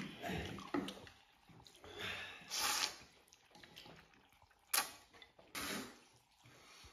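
A person slurping noodles from a bowl, with chewing between the slurps: several short wet slurps, one to two seconds apart.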